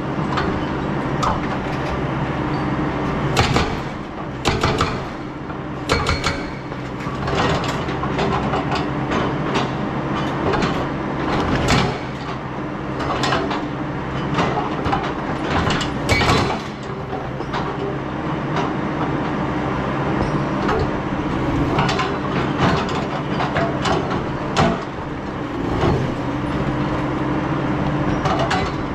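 Excavator's diesel engine running steadily under load, with repeated sharp clanks and knocks from the machine working.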